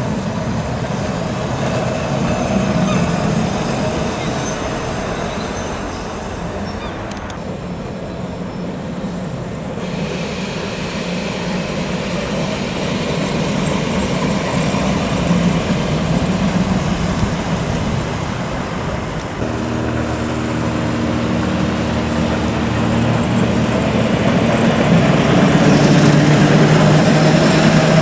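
Vintage electric tram running on street track: a steady rumble and rail noise. About two-thirds of the way in, a steady hum of several tones joins and grows louder.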